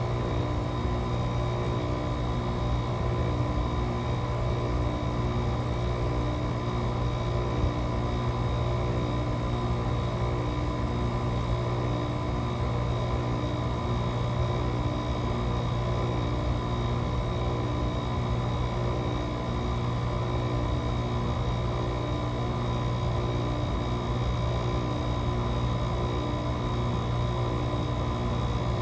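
GE 5050 BTU window air conditioner running early in a cold start at 15°F: its Samsung rotary compressor and fan make a steady hum with a high whine over it, while head pressure is still building.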